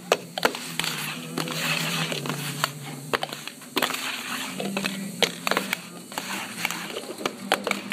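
Clear plastic cups being shuffled on a wooden table: a quick, irregular string of clicks, taps and knocks as the cup rims hit and slide on the wood.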